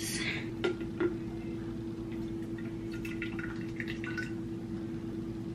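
Two sharp plastic clicks as breast pump collection cups are unclipped, then breast milk poured from a pump cup into a plastic baby bottle, heard as faint drips and trickling, over a steady low hum.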